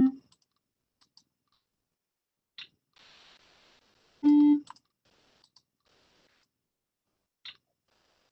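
Short electronic tones from the micro:bit simulator in the MakeCode editor, played as notes are picked on its piano-key note picker: middle C at the very start and one a step higher about four seconds in, each under half a second. Faint mouse clicks in between.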